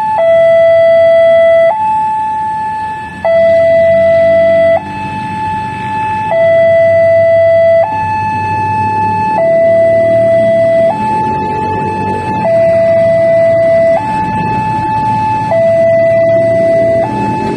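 Electronic railway level-crossing alarm sounding from a horn loudspeaker: a higher and a lower tone alternating, each held about a second and a half. Beneath it the Prambanan Express diesel railcar train runs slowly past.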